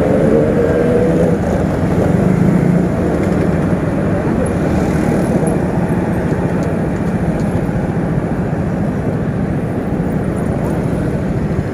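Riding noise from a motorcycle: heavy wind rumble on the microphone over engine and road noise. An engine hum stands out in the first few seconds, then fades into the rumble.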